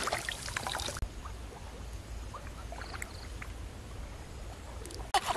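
Water splashing as a person wades through shallow marsh water. It cuts off abruptly about a second in, leaving quiet trickling water. Loud splashing starts again near the end.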